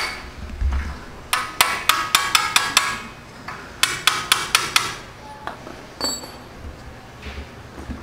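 Hammer tapping on steel at a front steering knuckle, knocking at a cotter pin to get it out. Two quick runs of six or seven ringing metal-on-metal taps, about five a second, then one more tap about six seconds in.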